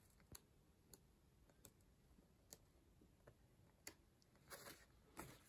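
Faint sounds of a large book's paper pages being turned by hand: a few soft, irregular clicks of paper, then a brief rustle near the end.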